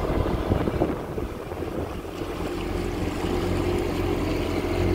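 2022 Kawasaki Ultra 310 LX jet ski's supercharged four-cylinder engine running steadily while cruising over choppy water, with wind on the microphone and water rushing past the hull.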